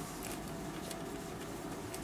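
Low steady background noise: an even hiss with a faint steady hum and no distinct sounds.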